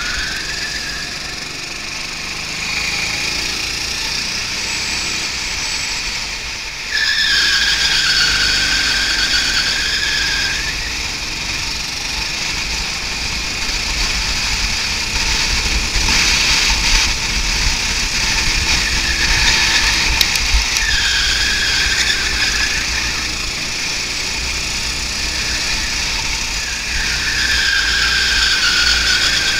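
Go-kart engine running at speed, its whine dipping in pitch through the corners and climbing again as it accelerates out, about three times, over road and wind noise.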